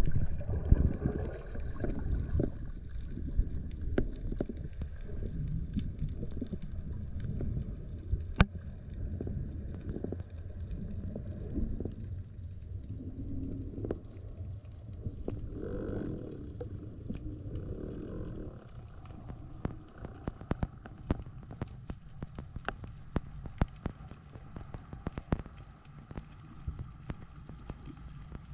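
Underwater sound on a freediving descent: a low rumble of water moving past the camera housing, fading gradually, with scattered sharp clicks and crackles throughout. A brief run of rapid high beeps near the end.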